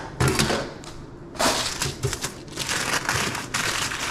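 Sheet of sandwich paper rustling and crinkling in bursts as a hot dog is wrapped by hand, louder from about a second and a half in.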